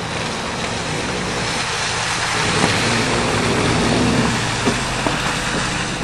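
GM SUV towing an enclosed cargo trailer driving slowly past: engine running with tyre and road noise, swelling to its loudest about four seconds in and then easing.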